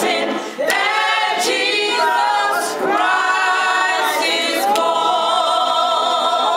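Women's gospel group singing a cappella in close harmony, settling into one long held chord about five seconds in.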